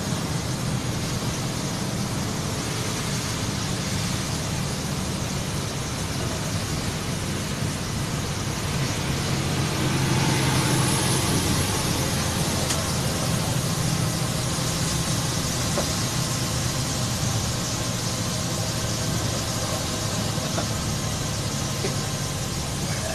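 Bus diesel engine running steadily under load, heard from inside the cab and getting a little louder about ten seconds in, over a constant hiss of tyres on a wet road.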